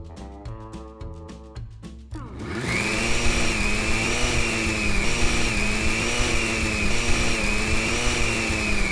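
Background music, then from about two seconds in a loud blender-like electric motor whine that rises in pitch as it starts and then wavers gently up and down before cutting off near the end.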